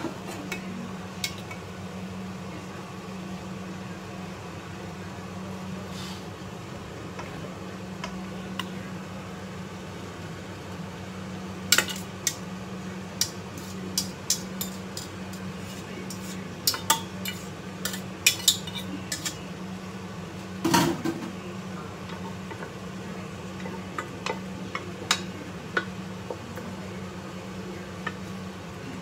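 Metal cookware and utensils clinking and clanking against a frying pan as boiled noodles are moved into it, in scattered sharp knocks bunched in the middle, over a steady low hum.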